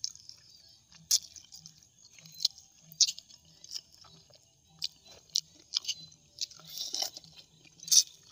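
A man chewing a boiled suckermouth catfish head up close, with irregular sharp wet mouth smacks and clicks as he works the meat and bones.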